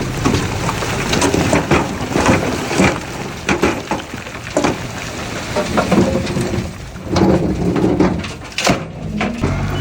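Heavy earthmoving machinery at work: an engine running under irregular clanks, knocks and scraping.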